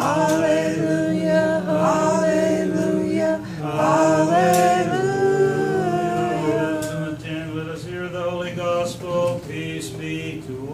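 Unaccompanied Orthodox liturgical chant, sung in long held notes that glide from one pitch to the next.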